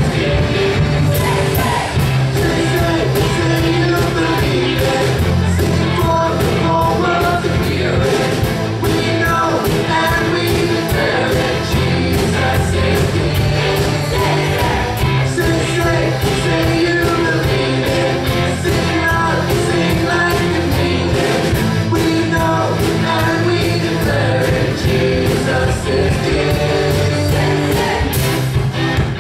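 A live worship band plays an upbeat pop-rock song, with several singers in unison over drums and bass on a steady beat.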